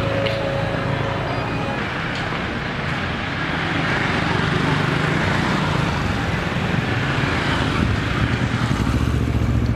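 Busy street ambience of motor traffic running past, with a louder low engine hum near the end.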